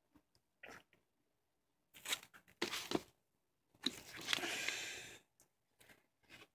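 Shrink-wrapped vinyl LP sleeve being handled and turned over: plastic crinkling and card rubbing, in a few short bursts about two seconds in and a longer stretch about four seconds in.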